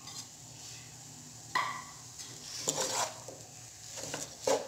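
Wooden spoon stirring and tossing shredded parotta and chicken in a nonstick pot, with several louder scrapes against the pan over a faint frying sizzle.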